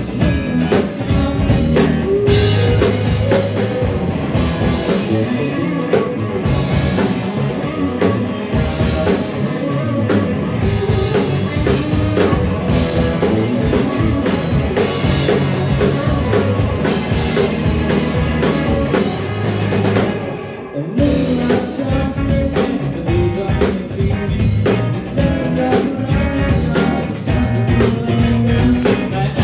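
Live rock band playing, the drum kit prominent with guitar. The music drops out for a moment about twenty seconds in, then comes straight back in.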